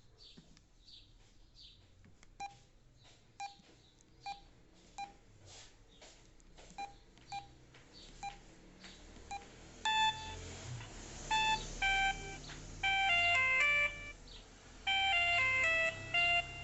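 Samsung SGH-E746 mobile phone ringtones: faint repeated chirps at first, then a string of short beeps about once a second, then from about ten seconds in a louder synthesized melody played in chords.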